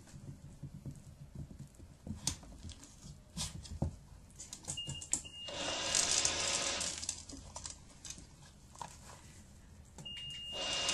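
Treat&Train remote treat dispenser beeping, then rattling for a second or so as its motor turns and drops a treat, about five seconds in; a second beep comes near the end. A few light taps come before the first beep.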